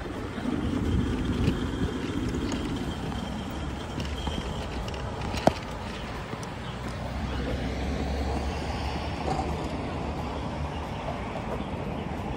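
Traffic and riding noise from an electric bike moving through city streets: a steady rumble of wind on the microphone mixed with passing vehicles. There is one sharp click about halfway through.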